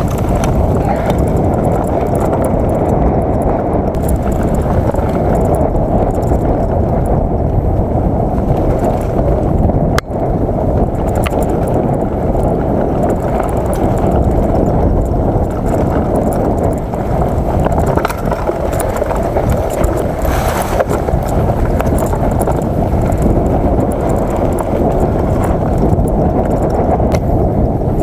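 Mountain bike riding fast down a dirt singletrack, picked up by a handlebar-mounted camera: a steady, loud rumble of wind and trail vibration with scattered rattling knocks from the bike over bumps. A sharp knock stands out about ten seconds in.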